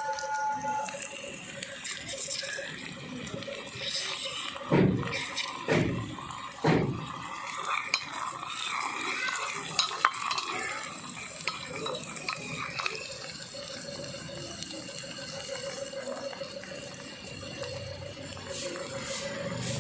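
A spoon stirring onions and green chillies frying in oil in a cooking pot, scraping and clinking against the pan, with three sharp knocks on the pan about five, six and seven seconds in.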